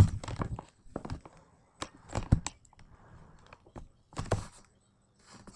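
Scattered knocks and fabric rustling as a small dog moves about on bedding and a plush toy. A sharp knock right at the start is the loudest, with further bursts about two and four seconds in.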